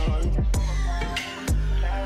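Hip hop background music with a deep sliding bass and sharp snare hits.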